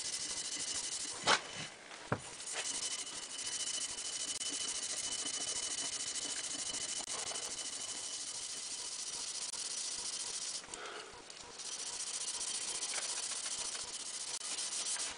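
Scotch-Brite scouring pad rubbing along a rusty steel rifle barrel soaked in WD-40, giving a steady hiss that pauses briefly about 11 seconds in. Two sharp clicks come a second or two in.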